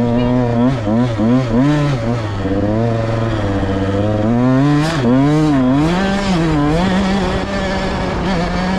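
Off-road vehicle engine being ridden in sand, its pitch rising and falling over and over as the throttle is worked, then holding a steadier note near the end.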